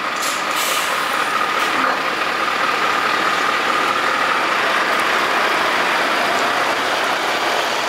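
Scania R650 heavy truck's V8 diesel running steadily, with a thin whine that fades out about five seconds in.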